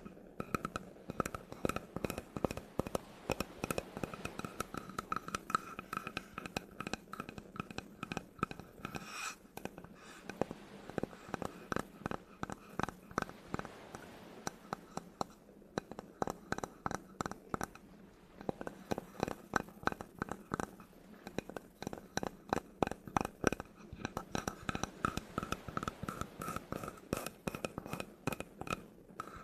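Fingers tapping and scratching on wood, up close: quick irregular taps several times a second with short pauses between runs.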